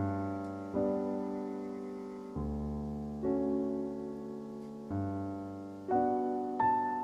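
Background music: slow solo piano, each chord struck and left to fade, a new one every second or so, with the top notes climbing higher near the end.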